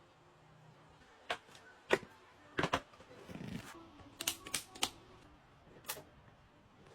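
A run of irregular sharp clicks and taps from small items being handled and set down, some in quick pairs, with a brief low rustle about three seconds in.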